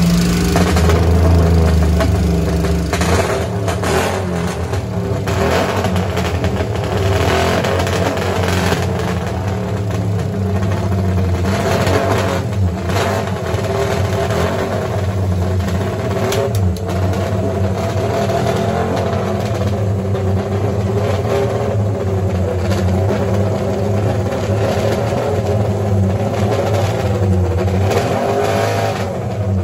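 1972 MV Agusta 500/3 Grand Prix racer's air-cooled three-cylinder four-stroke engine running on warm-up, its revs rising and falling a little under light throttle.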